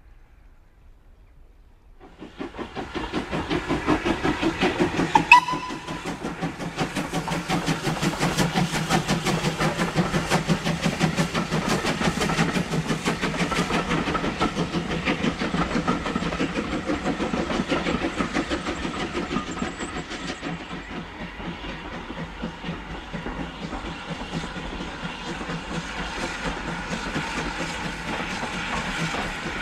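LSWR T9 4-4-0 steam locomotive working past with its coaches, starting about two seconds in: steam exhaust and rail noise with a fast, even beat. A short steam whistle sounds once about five seconds in.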